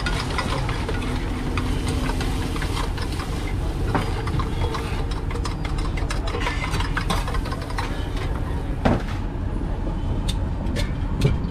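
Metal spatula scraping and clinking on a large iron griddle and a steel plate as an omelette is scooped off, over a steady low engine-like rumble. A louder metal clank comes about nine seconds in.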